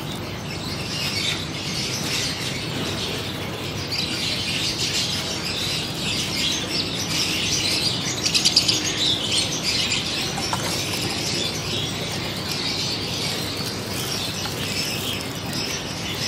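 Water sprinkling from a plastic watering can's rose onto leafy plants and soil, a steady hiss of spray.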